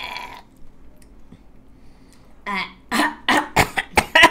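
Coughing and throat clearing in a quick run of short, sharp bursts near the end, after a strained groan trails off at the start. It is a reaction to a bad-tasting mouthful.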